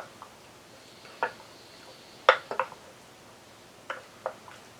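A spoon clinking and knocking against the slow cooker's crock in a handful of irregular taps while sauce is spooned over a beef roast. The loudest taps come about two seconds in.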